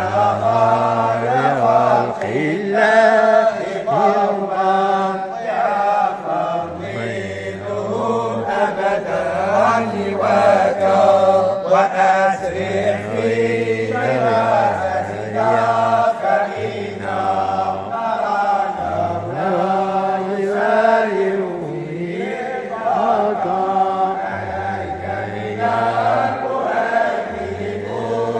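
Group of men chanting unaccompanied in unison, a devotional invocation calling blessings on the Prophet, with a low note held beneath the melody in stretches.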